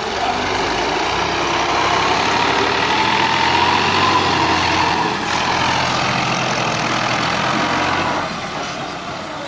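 New Holland (Fiat) 480 tractor's three-cylinder diesel engine running steadily while manoeuvring a loaded trolley, easing off and growing quieter near the end.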